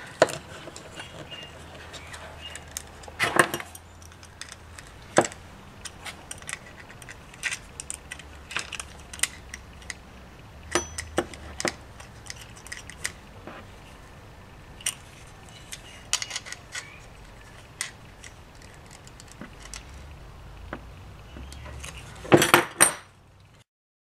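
Scattered small clicks and metallic clinks as a pushbutton switch is fitted into a plastic doorbell button case and its mounting nut is tightened by hand, with a louder clatter near the end.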